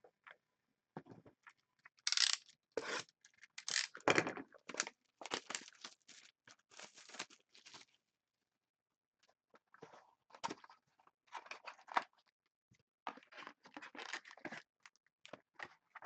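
Packaging being torn open on a sealed hockey card box: several seconds of loud rustling tears, then a short pause and quieter crinkling and handling.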